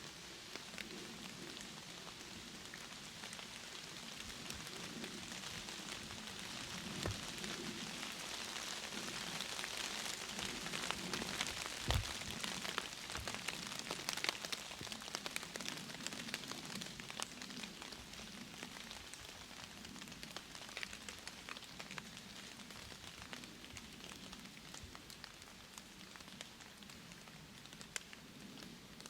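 Steady rain pattering on leaves and gear, a hiss full of tiny drop ticks that swells a little in the middle. There is a single louder thump about twelve seconds in.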